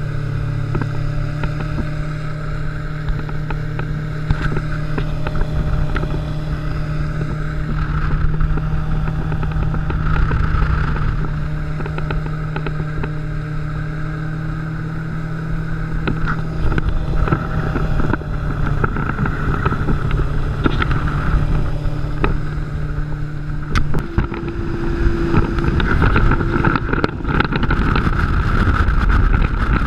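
Mercury Racing 400R supercharged inline-six outboard running at high speed, a steady engine drone under rushing water and wind buffeting the microphone. About 24 seconds in the steady engine note breaks off and louder, rougher wind and water noise takes over.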